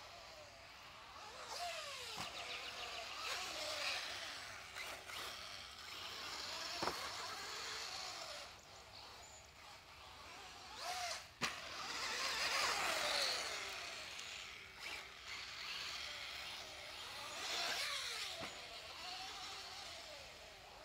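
Team Associated B5M 1/10 electric 2WD buggy running laps on a dirt track. Its brushless motor whines up and down in pitch as it accelerates and brakes, and its tyres hiss and scrabble on the dirt. The sound swells and fades as the car passes. Two sharp knocks come about 7 and 11 seconds in.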